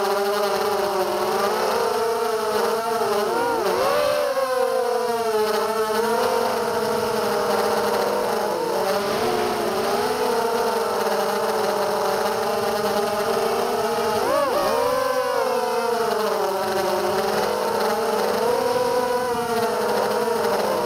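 Brushless motors (DYS BE1806 2300KV) and 5x4 propellers of an FPV racing quadcopter whining in flight, the pitch wavering as the throttle changes. Quick sharp swoops up and down in pitch come about four seconds in and again about fourteen seconds in.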